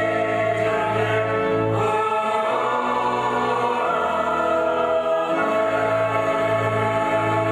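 A hymn sung by a church choir and congregation with instrumental accompaniment, in long held chords that change a couple of times.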